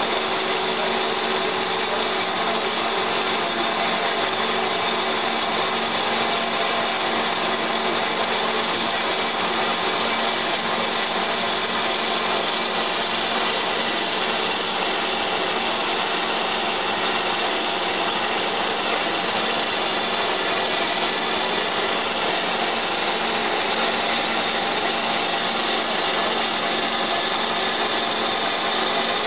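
Behringer-Vernet HBP 530 mitre bandsaw running steadily through a steel section, an even machine noise with several constant whining tones.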